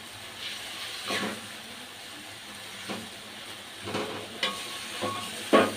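A spatula scraping and tapping against a metal wok as shredded tuna sambal is stirred, about six strokes with the loudest near the end. Under it the sauce sizzles steadily as it fries.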